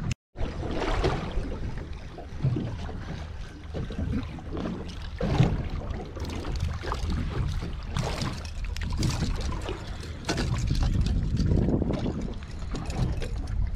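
Wind buffeting the microphone over choppy water slapping against a small boat, with scattered knocks. There is a split-second dropout right at the start.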